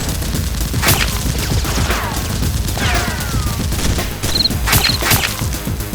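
Scattered gunfire: several sharp single shots, about a second in and again as a close pair near the end, with falling whistle-like glides in between.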